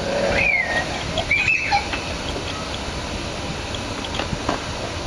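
Two short bird calls in quick succession in the first two seconds, each gliding in pitch, over a steady background hum.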